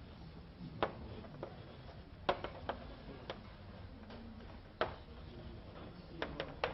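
Irregular sharp clicks and taps, about ten of them at uneven spacing and bunched near the end, over a low steady room hum.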